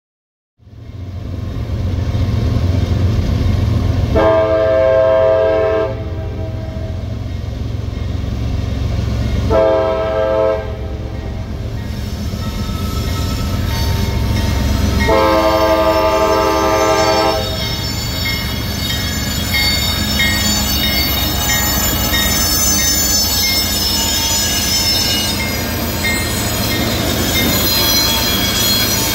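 Diesel freight locomotives rumbling as they approach a grade crossing, sounding a multi-chime air horn three times for the crossing: a long blast, a shorter one, then the longest. From about two-thirds in, the locomotives pass close by with wheel squeal and rail clatter over the engine noise.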